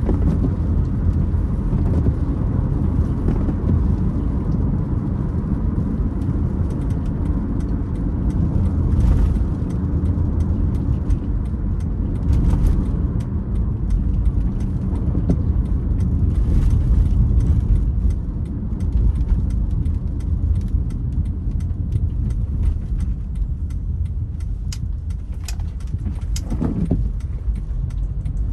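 Steady road and engine rumble of a car driving in rain, with rain ticking on the glass. Windscreen wipers sweep across every few seconds with a creak.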